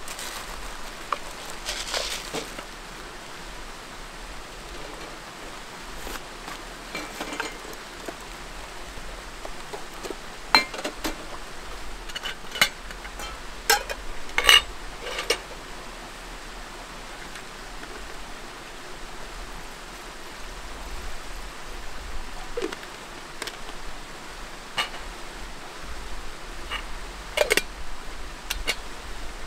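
Metal camp cookware clinking and knocking as aluminium pots and a small stove are unpacked and set down on an iron mesh table: scattered sharp clinks, busiest in the middle and again near the end. A steady hiss of rain runs underneath.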